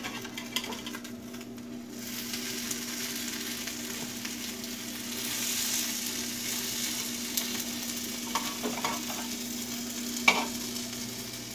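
Egg omelette frying in a small frying pan with a steady sizzle that grows louder about two seconds in. A metal spatula scrapes and clicks against the pan a few times as it lifts and turns the omelette, the sharpest click near the end.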